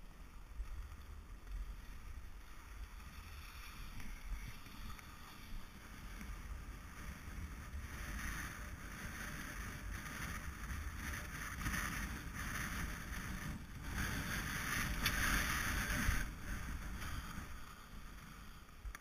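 Skis sliding and scraping over packed snow, with wind buffeting the action camera's microphone. The hiss of the skis swells from about eight seconds in, is loudest around three-quarters of the way through, then eases off.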